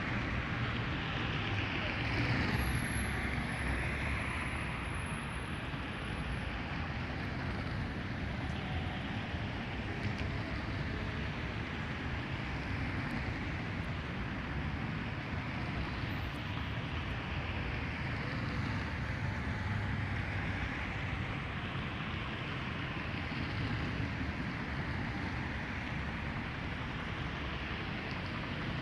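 Diesel-hauled freight train rumbling past: a steady low rumble with a rushing noise that swells and fades every few seconds.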